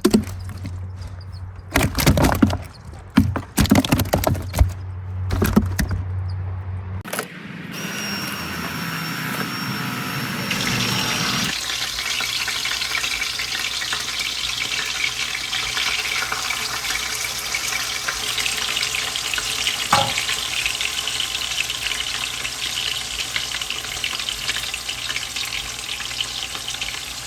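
A few seconds of knocks and clatter, then a steady sizzle of crappie frying in shallow oil in a pan.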